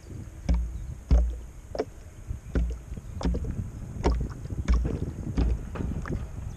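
Small water waves slapping against the hull of a remote-control bait boat as it runs across choppy water, a sharp knock about every two-thirds of a second over a low rumble of wind on the microphone.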